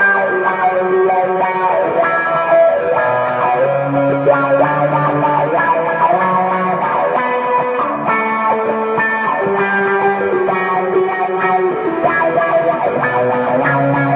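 Electric guitar played through a Sonicake volume/wah pedal, a picked riff of single notes and chords over held low notes, at a fairly even loudness.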